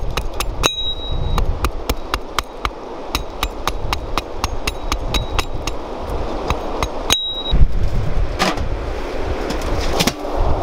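Hatchet blade chopping and shaving a wooden stick, quick repeated strikes about three to four a second, some with a short metallic ring. The chopping stops about seven seconds in, followed by a few scattered knocks.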